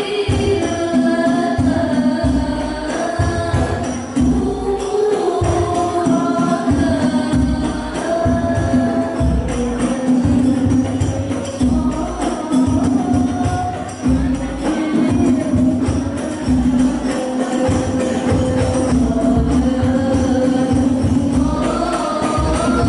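Sholawat devotional singing by a group of voices, backed by hadrah frame drums playing a steady, dense rhythm, heard through an amplified sound system.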